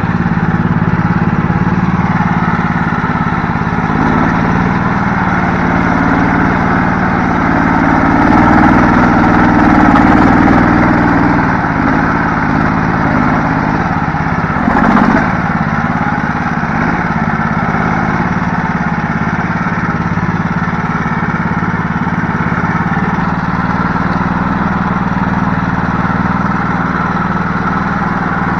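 Small engine of a homemade karakat all-terrain vehicle running steadily, louder and a little higher in revs about a third of the way in. There is a brief thump about halfway through.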